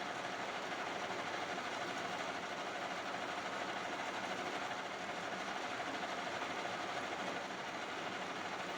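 Metal-turning lathe running steadily, a continuous machine noise with a constant mid-pitched tone.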